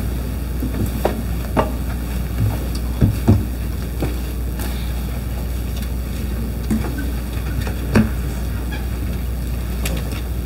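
Steady low hum of a live sound-system microphone with scattered knocks and clicks from the lectern microphone and lectern being handled, the loudest a pair about three seconds in and one about eight seconds in.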